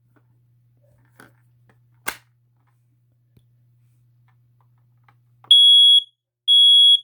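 Kidde i4618AC-CA ionization smoke alarm sounding on test: loud, steady high-pitched beeps of about half a second each, two of them starting about five and a half seconds in, the opening of the temporal-three fire pattern. A single sharp click comes about two seconds in.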